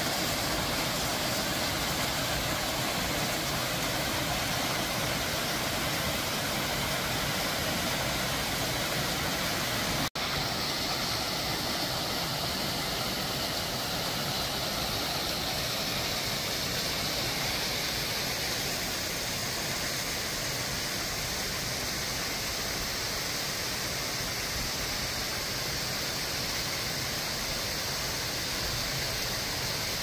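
Mountain stream rushing over rocks and small cascades, a steady even rush of water. It cuts out for an instant about ten seconds in.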